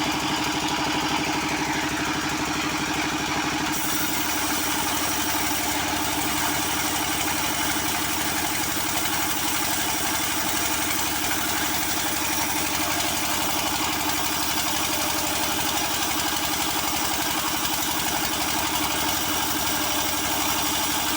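The engine of a wood saw running steadily, without change in speed, as coconut-palm wood is sawn; a higher hiss joins in about four seconds in.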